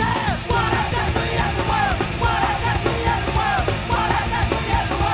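Punk rock song from a 1990s vinyl record: loud, driving electric guitars, bass and drums, playing continuously.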